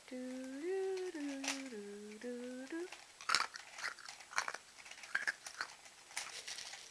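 A person hums a short tune of a few held notes that step up and down, for about three seconds. Then comes a run of irregular plastic clicks and clacks from a Rubik's Cube being twisted during a solve.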